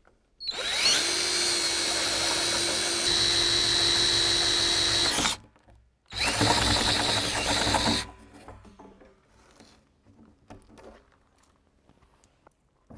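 Cordless drill with a spade bit boring an inlet hole through the top of a plastic rain barrel. The motor spins up with a rising whine about half a second in and runs steadily for about five seconds. It stops briefly, then runs again for about two seconds.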